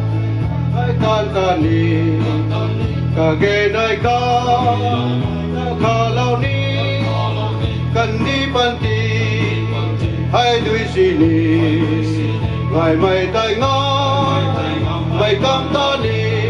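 A male gospel vocal group singing together with instrumental backing, held low bass notes changing every second or two under the voices.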